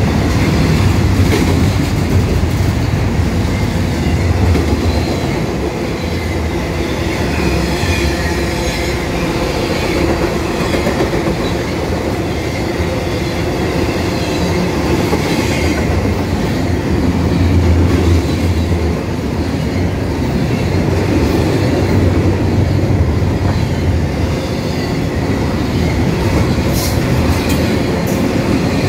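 Double-stack intermodal well cars rolling past close by: a steady rumble of steel wheels on rail that swells and eases, with clacking over the rail joints and a thin wheel squeal now and then.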